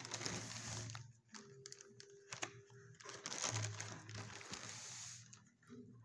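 Dog sniffing in short noisy bursts while nosing around for a snack, with scattered clicks and rustles between the sniffs.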